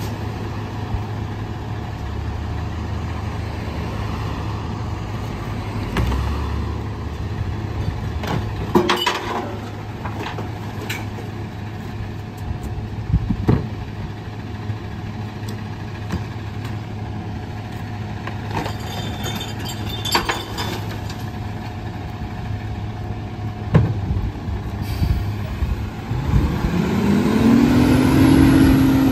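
Rear-loader garbage truck idling steadily, with knocks and clatter a few times as bins and trash are tipped into the hopper. Near the end the engine revs up and a pitched whine rises and falls as the hydraulic packer is cycled.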